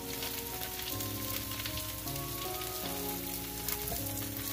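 Veggie fritters and a vegetable mix sizzling in cast-iron skillets, a steady hiss with fine crackling, under background music of held notes.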